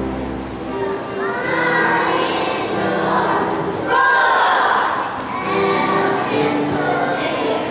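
A song with music playing and children's voices singing together, the children's performance number for a kindergarten circus.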